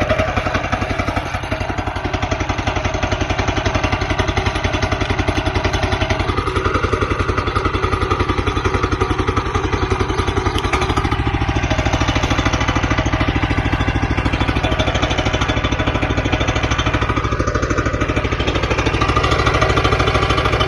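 Walk-behind power trowel's gasoline engine running on choke just after starting, a steady engine note whose tone shifts about halfway through.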